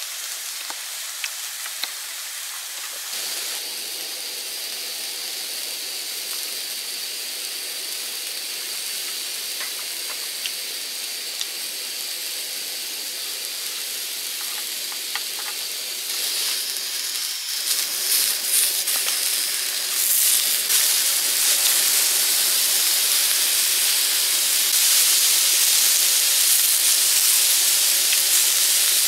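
Ribs sizzling on a small tabletop grill: a steady hiss that grows clearly louder a little past halfway as more meat goes onto the grate, with a few light clicks.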